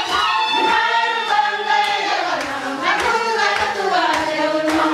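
A group of voices singing a Marakwet traditional dance song together, with sharp hand claps at uneven intervals.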